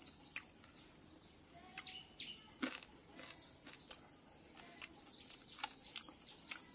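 Small birds chirping in the background: short, high calls that slide downward, a pair about two seconds in and a run of them near the end. A few sharp faint clicks fall in between.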